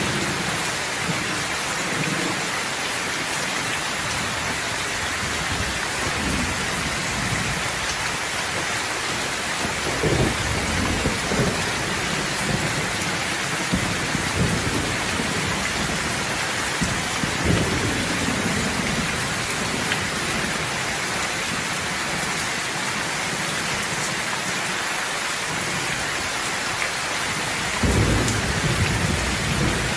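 Steady, heavy rain falling, with low rolls of thunder rumbling through it. The thunder swells about ten seconds in, again partway through, and near the end.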